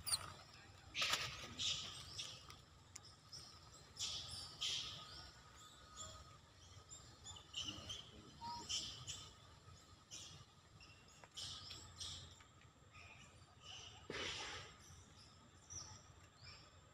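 Scattered short, high-pitched chirps and squeaks, several a second at their busiest, some gliding in pitch, with a few louder calls about a second in, around four seconds in and near the end.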